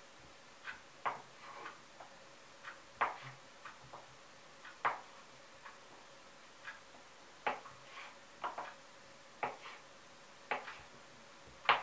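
Kitchen knife knocking on a wooden cutting board while dicing a boiled potato: a run of sharp, irregular taps, roughly one or two a second, some followed by a couple of lighter ticks.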